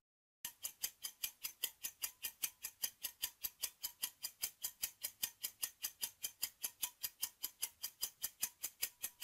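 Countdown timer sound effect: an even clock-like ticking, about five ticks a second, starting about half a second in.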